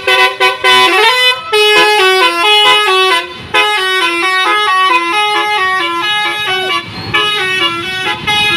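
Indonesian bus 'telolet' musical horn playing a rapid melody of short stepped notes. It plays in three phrases, with brief breaks about three and a half seconds and seven seconds in.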